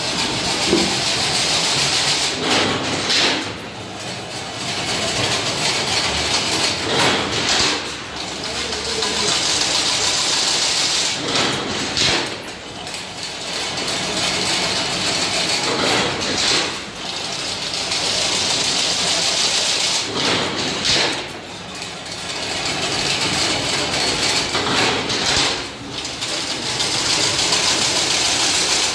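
Automatic chain link fence machine running: a steady mechanical clatter broken by a heavier knock in a regular cycle, about every four and a half seconds.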